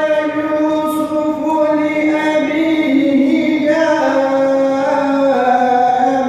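A young male reciter chanting the Quran in the melodic tajweed style, holding long drawn-out notes with small ornaments. The melody steps down in pitch about halfway through.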